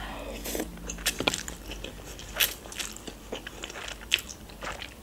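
Close-miked eating of Big Bon instant noodles: slurping strands in off a fork and chewing, with irregular short sharp mouth sounds.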